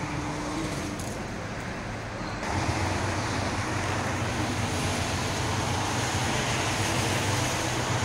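Traffic on a rain-wet road: steady tyre hiss from passing cars, with a low engine hum that comes in louder about two and a half seconds in.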